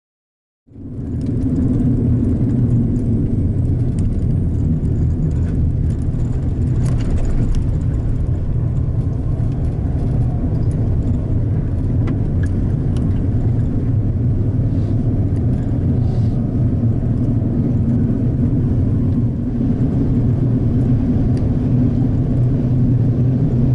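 Steady low rumble of a car's engine and road noise while driving. It cuts in abruptly just under a second in.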